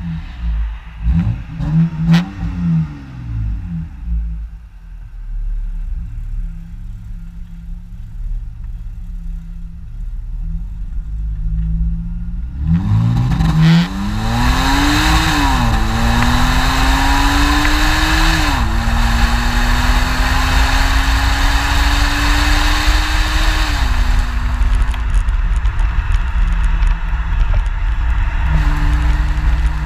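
BMW E92 328i's 3.0-litre inline-six, heard through a muffler-delete exhaust from just behind the car. It gives a few quick throttle blips at the start, then runs low and steady for several seconds. About halfway through it pulls away, rising in pitch through the gears with two quick upshifts and then a slower climb, while wind and road noise build with speed.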